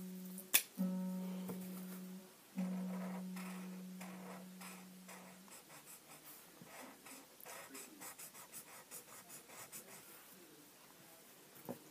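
A low plucked-string note sounds three times at the same pitch, the first two cut short and the last fading out over about three seconds. After that, faint scratching of a felt-tip marker on paper.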